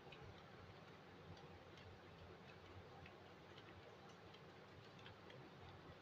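Near silence, with faint, irregularly spaced soft clicks and light tacky sounds from rubber-gloved hands pressing and flattening a ball of dough.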